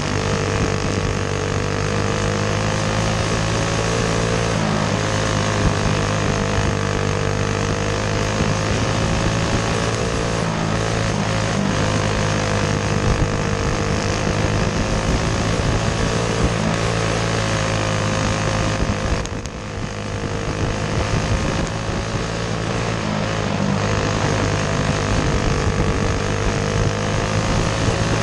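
Racing kart engine running hard at high revs, heard from on board the kart, its pitch wavering slightly up and down through the turns. A little past two-thirds of the way through it briefly drops in loudness, then comes back up.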